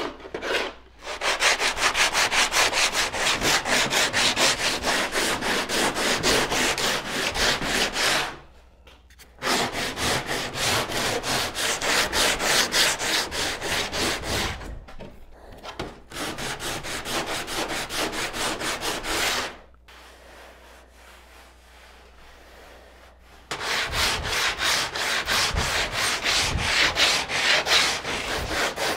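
Coarse 40-grit sandpaper rubbed by hand over the bare western red cedar strips inside a kayak, in fast back-and-forth strokes. The strokes come in long runs, with brief stops about eight and fifteen seconds in and a longer pause around twenty seconds.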